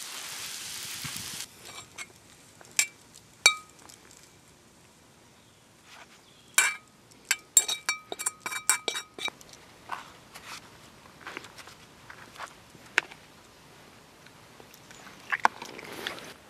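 Sizzling from a camping frying pan stops about a second and a half in. Then metal cutlery clinks and scrapes against the metal pan while food is tipped out onto a plate, some clinks ringing, with a quick run of them about halfway through.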